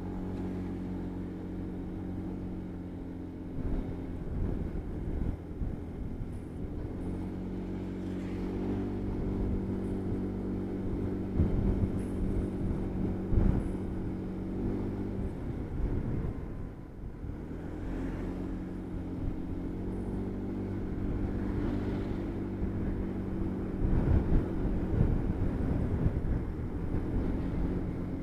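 A motorbike engine running while it is ridden. Its pitch holds steady for stretches and shifts several times, with a dip about two-thirds of the way through, under gusts of wind noise on the microphone.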